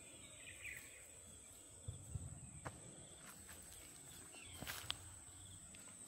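Faint outdoor ambience: a steady high-pitched tone, with a few soft knocks and rustles about two seconds in and again near the end.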